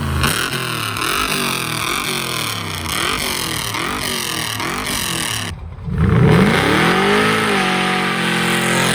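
406 small-block Chevy V8 being revved in quick repeated throttle blips. After a brief break it gives one longer rev that rises and falls, then settles to a steady run.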